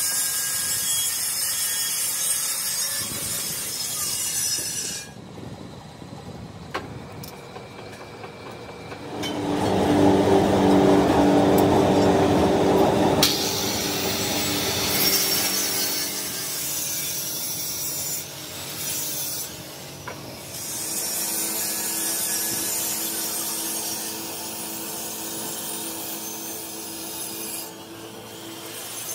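Handheld angle grinder grinding a steel wheel rim as it turns in a lathe, a hissing, scraping grind in several passes with short lulls between them. The loudest pass, about a third of the way in, carries a steady pitched hum.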